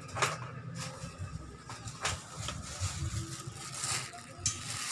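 Metal scissor-arm microphone stand being handled: a few sharp clicks and clacks, about two seconds apart, over low rustling handling noise.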